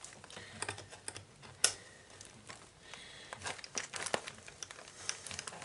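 Plastic bag and plastic sheeting crinkling as hands fasten the bag into a metal skirt-hanger clip. Scattered small clicks and rustles, the sharpest about a second and a half in and again about four seconds in.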